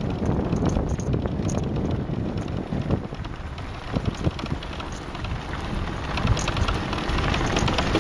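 Ride on a motorbike over a cobbled street: wind buffeting the microphone and a steady low rumble, with many small knocks and rattles from the bumpy stone surface. It dips a little midway.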